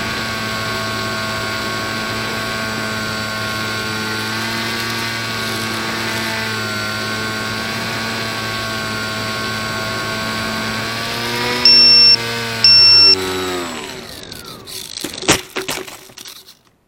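Small brushless electric motor and 7x5 propeller of an RC plane running at a steady pitch. About 12 s in come two loud high beeps a second apart, then the motor winds down with falling pitch, followed by a few sharp clicks before the sound cuts off.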